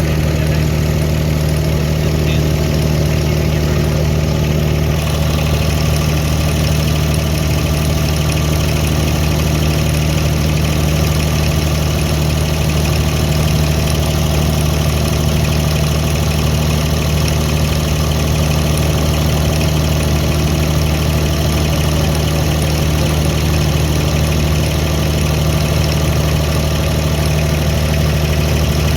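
Diesel engine of a wooden Dubai Creek abra water taxi running steadily, a constant low drone with a strong hum.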